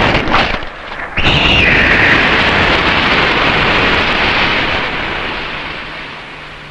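A tokusatsu explosion sound effect. A few short blasts in the first second are followed by one big explosion about a second in, with a brief falling whistle at its start. The blast's noise then dies away slowly over several seconds.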